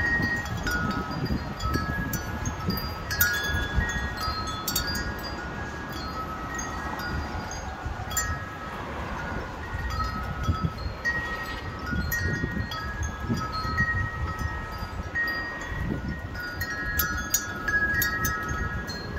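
Wind chimes ringing in gusty storm wind, their clear metallic tones struck in quick irregular clusters. Under them the wind rushes and buffets the microphone with a steady low rumble.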